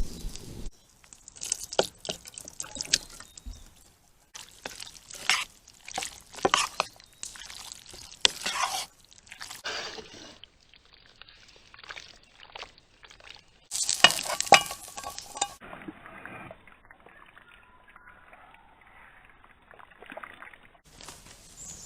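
Wet stirring and scraping of a utensil in a pot of cheese sauce, in irregular bursts of clicks and sloshing with quieter gaps between.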